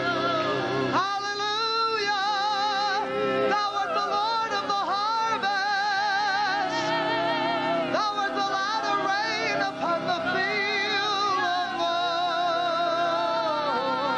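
Congregation singing in tongues: many voices improvising freely at once, holding long wavering notes that rise and fall, over steady held lower notes.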